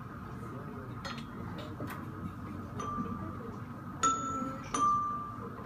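Three single metal notes struck on a small glockenspiel-like mallet instrument, each ringing briefly, the last two about four and five seconds in the loudest.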